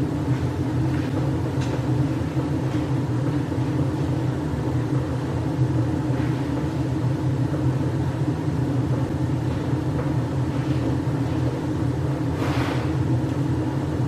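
Weil-McLain 305,000 BTU gas-fired hot water boiler running at high fire: a steady low rumble from the burner. It is burning badly, with a faulty gas valve regulator and nearly 300 ppm air-free carbon monoxide in the flue. A brief hiss sounds near the end.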